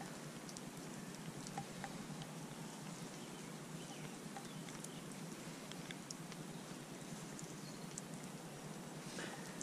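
Light rain pattering: a faint steady hiss with scattered small ticks, and a brief rustle near the end.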